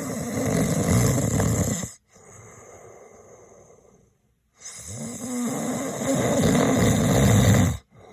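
Snoring sound effect: a man snoring in two long, rough snores. Each snore is followed by a quieter breath, with a short pause before the second snore starts about four and a half seconds in.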